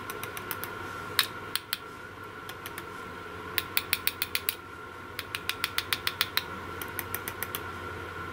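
Runs of small sharp clicks, several a second, as a wire lead is tapped against a 12 V car battery terminal to make contact, over a faint steady tone.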